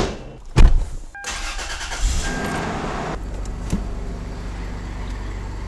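A car door shuts with a thud, then the Toyota 4Runner's engine cranks and starts about two seconds in and settles into a steady idle.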